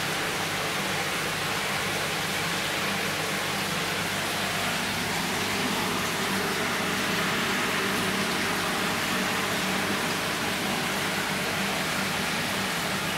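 Steady rushing of running water, an even hiss with a faint low hum underneath.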